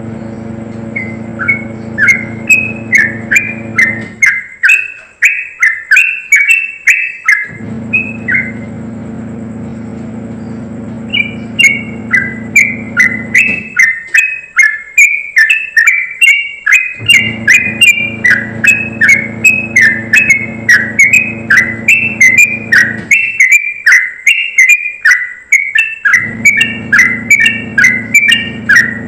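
Yellow-vented bulbul singing a rapid, high-pitched run of short repeated notes (ropelan song), in long bursts with one pause of a few seconds about a third of the way in. Under it, a low steady hum comes and goes in stretches of several seconds.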